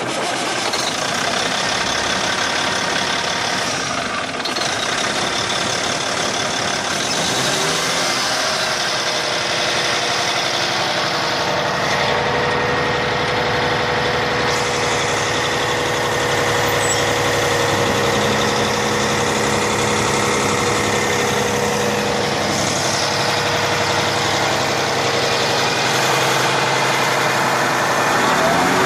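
Semi truck's yellow-painted Caterpillar diesel engine running at idle with the hood open, its low note climbing in pitch about eight seconds in and settling into a steady run.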